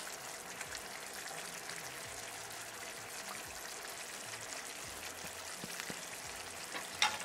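Egg masala curry simmering on low heat in a pan: a steady, soft sizzle with fine crackling from the bubbling tomato-onion gravy. A brief sharp click near the end.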